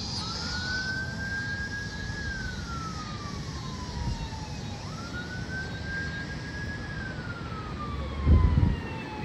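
Emergency vehicle siren on a slow wail: it sweeps quickly up, holds, then slides slowly down, about twice, over the steady rumble of traffic. A brief low rumble about eight seconds in is the loudest moment.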